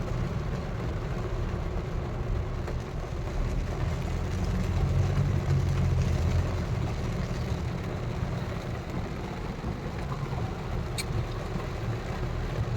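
Steady low rumble of a car's engine and running gear heard from inside the cabin in slow traffic, swelling slightly midway, with one short click near the end.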